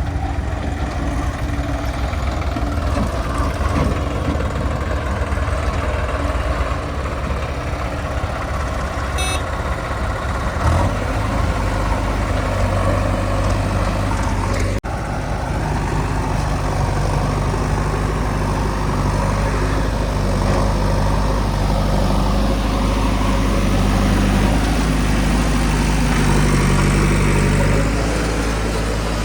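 A tractor's diesel engine running steadily. About halfway through the sound breaks off sharply and picks up again with a slightly different pitch.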